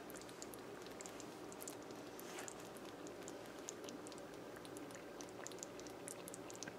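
Faint scattered crackling and small pops over a low steady hum: a pot of Guyanese fish curry sizzling gently as it dries down.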